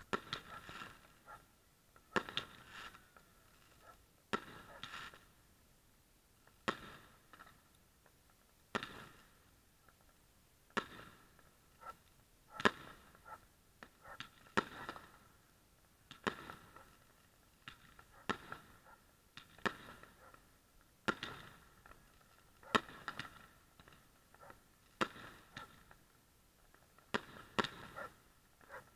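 Aerial fireworks bursting overhead, a sharp bang about every two seconds, each trailing off briefly.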